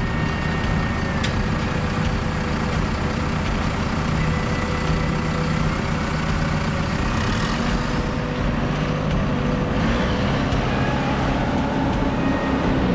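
Crawler dozer's diesel engine running steadily under load.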